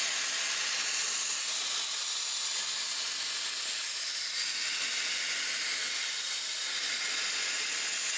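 Cut50P pilot-arc plasma cutter torch cutting sheet metal: a loud, steady hiss of the plasma arc and air. The arc runs continuously with no sputtering or dropouts, even with the spark gap widened.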